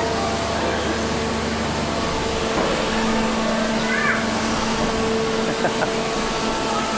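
Steady machine hum with two steady tones running through it, and a low drone underneath that drops away about two and a half seconds in.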